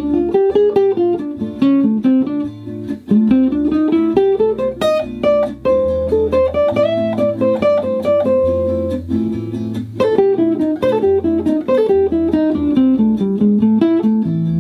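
1977 Gibson L5-CES archtop electric guitar through a Fender '65 Deluxe Reverb reissue amp, playing a fast single-note improvised solo in A minor on the blues scale, the pentatonic with the added flat five (E flat/D sharp). Steady low bass notes run underneath, changing every second or two.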